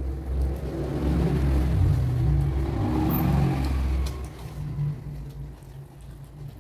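A motor vehicle engine passing: a low rumble that swells to its loudest between about one and four seconds in, then fades.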